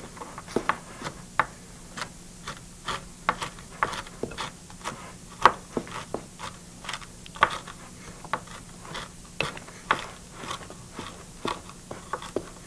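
Knife chopping walnuts on a cutting board: irregular sharp taps and crunches, a few a second, with a spoon scraping through batter in a glass bowl. A faint steady low hum runs underneath.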